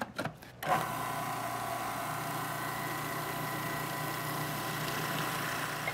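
A few clicks, then a countertop food processor's motor starts under a second in and runs steadily, mixing masa harina, lard and water into tamale-pie crust dough.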